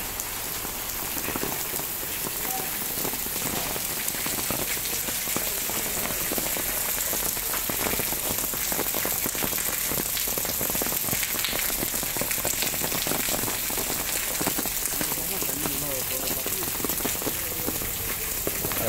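Steady rain falling on wet ground and standing puddles, a dense, even patter of many drops.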